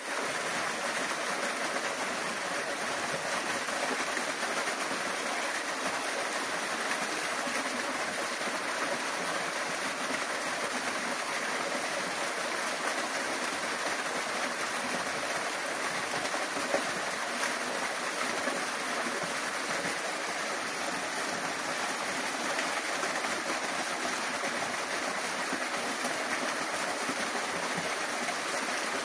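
Small waterfall splashing down a rock face into a shallow pool: a steady, even rush of falling water.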